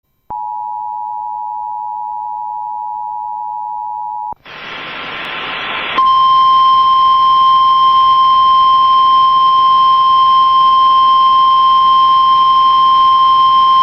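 Emergency Alert System alert tones: the two-note attention signal sounds steadily for about four seconds and stops abruptly. A second or so of rising static hiss follows, then the single steady NOAA Weather Radio warning tone comes on about six seconds in and holds.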